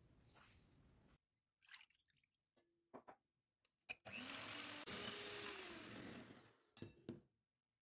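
Electric hand mixer running with its beaters whisking whipping cream in a glass bowl. It starts about four seconds in, runs steadily for about two and a half seconds and fades out, after a few light clicks and knocks.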